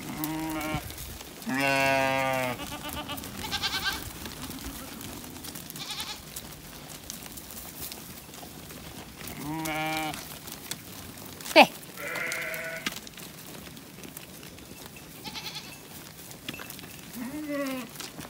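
A mixed flock of sheep and goats bleating, with about eight separate quavering calls, the longest about two seconds in. About two-thirds of the way through comes one very short, sharp falling note, louder than the bleats.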